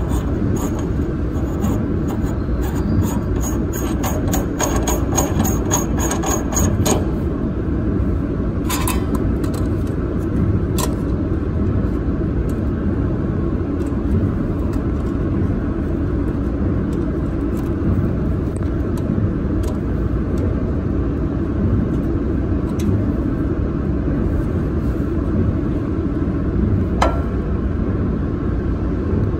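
Steady low rumble of machinery running. Over it, a quick run of small clicks in the first few seconds and a few single clicks later, from the plastic lens housing being handled and fitted.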